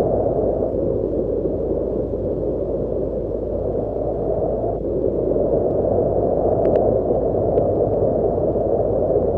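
Gentle breeze wind sound effect: a steady, low rushing that eases a little, then swells again about halfway through.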